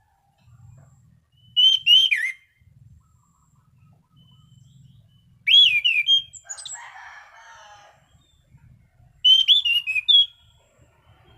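Anis cendana thrush singing: three short phrases of clear whistled notes with quick up-and-down slides, a few seconds apart.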